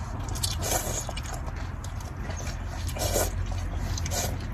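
A person eating a bowl of beef noodles: several short, irregular slurps and chews, over a steady low rumble.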